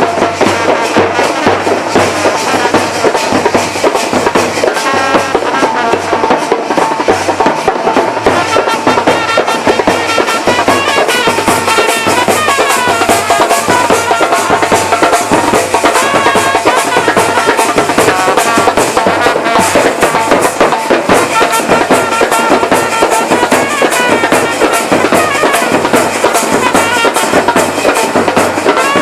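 Loud music with busy, continuous drumming and a pitched melody line over it.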